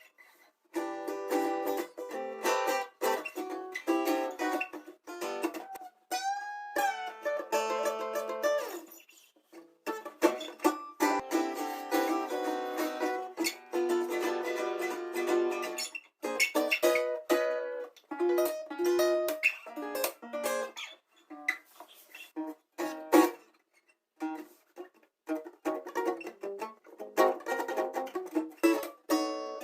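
Guitar being played, plucked notes and chords, with the playing breaking off abruptly into silence and starting again several times.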